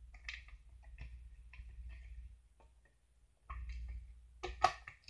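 Small plastic Lego pieces clicking as they are fitted back together, a run of light ticks followed after a short pause by one sharper snap near the end.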